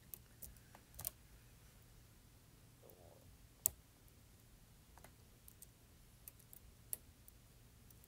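Faint, sharp metallic clicks from a MIWA U9 lever lock being picked, as a hook pick presses and sets its levers against tension from a tension wrench. About seven scattered clicks, the loudest about three and a half seconds in.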